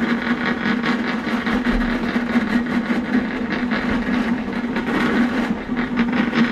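Electric drain-cleaning machine running steadily, its snake cable spinning and rattling inside the sewer pipe as it clears a clogged main line. A steady hum under a rapid, continuous clatter.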